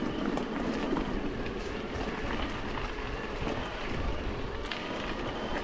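E-mountain bike riding over rough ground: a steady rumble of tyres and frame with many scattered small clicks and rattles.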